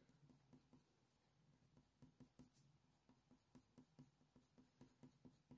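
Very faint scratching of a Faber-Castell Polychromos coloured pencil stroking over hot-press watercolour paper, in short light strokes that come in quick runs of three or four.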